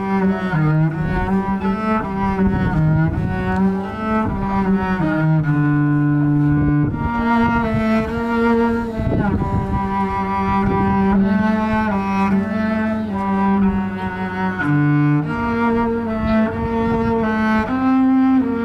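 Cello music: a slow melody of long, held bowed notes, stepping and sliding between pitches.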